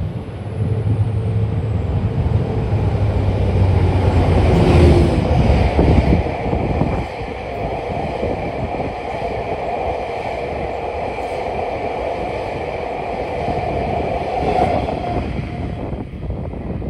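A diesel locomotive passes close by, its engine drone loud for the first few seconds. A long rake of unpowered new Meitetsu 9500-series cars follows, their wheels rumbling on the rails with an occasional clack from the rail joints. The train then fades away near the end.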